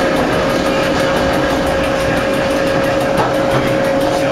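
Metre-gauge electric mountain railcar running, heard from the driver's cab: a steady high whine from the drive over the low rumble of the wheels on the track.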